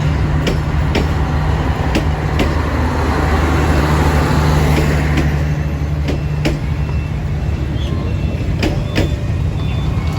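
Passenger train coaches rolling slowly past, their wheels clicking in pairs over rail joints every few seconds over a steady low rumble and hum.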